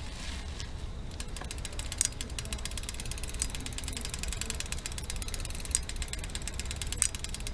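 Bicycle being back-pedalled, its freewheel pawls ticking rapidly and evenly, with a sharper click every second or two. That click is the unexplained noise from the bottom bracket.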